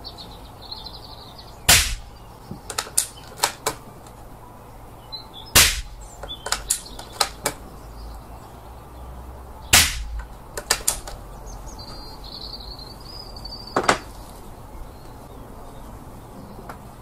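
Three silenced shots from a Daystate air rifle fitted with the CK silencer, about four seconds apart, each followed by a few lighter clicks. A softer knock comes near the end, and birds chirp faintly.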